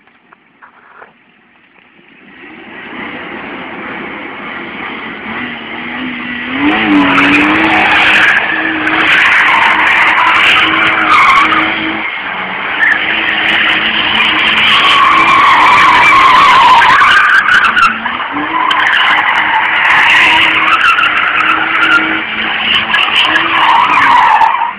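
BMW M5 drifting: the tyres squeal loudly over the engine held at high revs. The sound builds from about two seconds in, is loudest from about seven seconds, and cuts off abruptly just before the end.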